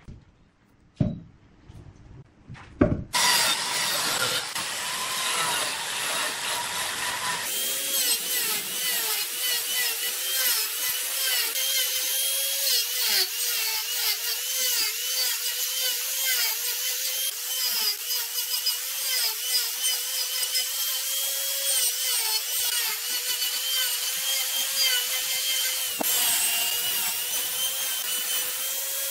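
Angle grinder with a toothed cutting disc cutting into turned jackfruit wood: a rough cutting noise starting about three seconds in, after a few light knocks, then a steady motor whine that wavers slightly as the disc bites.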